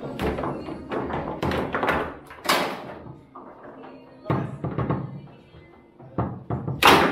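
Foosball being played: a string of sharp clacks and thuds as the plastic figures strike the ball and the rods knock in the table, with a particularly loud hit near the end. Music plays underneath.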